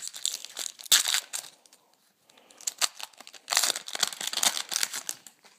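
Foil wrapper of a trading-card pack crinkling and tearing in irregular bursts, with a short quiet gap between them, as a pack of baseball cards is opened and handled.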